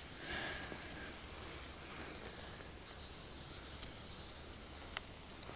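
Faint, steady hiss of a pump-up garden sprayer's wand misting a neem oil and soap mixture, with two small clicks near the end.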